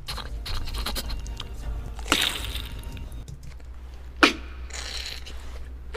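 Beatboxer's mouth-made sound effects: rough scraping breath noises, then a loud breathy burst about two seconds in and a sharp burst that falls in pitch about four seconds in, followed by a hiss.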